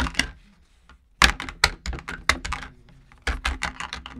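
Quick runs of sharp taps and knocks on a tabletop, with a short lull about a second in.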